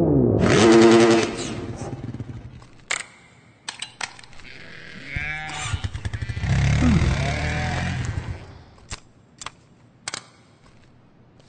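Engine-like revving sounds that rise and fall in pitch, loudest in the first second and again in the middle, with several sharp clicks in between.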